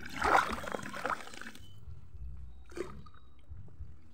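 Water splashing and dripping as a wet gill net is pulled up out of shallow river water. It is busiest for the first second and a half, then dies down to a few drips.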